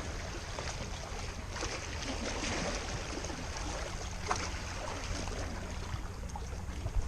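Steady low wind rumble on the microphone over water sloshing and lapping, with a few faint small knocks.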